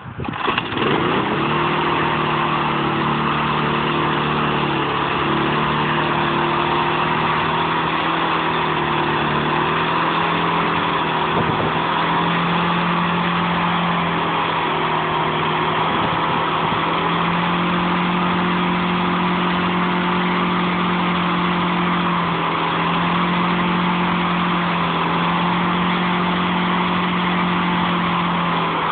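A small lawnmower engine starts, picks up speed within the first second or so, and then runs steadily at high speed. Its pitch lifts a little for a few seconds at a time and settles back.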